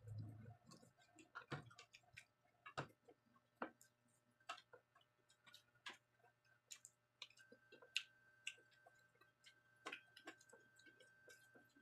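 Near silence with faint, irregularly spaced small clicks and ticks over a low steady hum.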